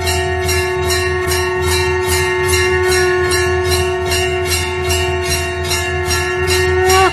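Conch shell (shankh) blown in one long, steady note that bends up slightly and breaks off near the end, over a temple hand bell rung rapidly at several strokes a second.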